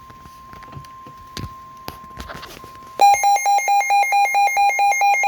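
Weather radio alert: the faint steady 1050 Hz warning tone under crackle and clicks, then about three seconds in the weather radio receiver's own alarm starts beeping loudly, about five beeps a second, signalling an incoming warning.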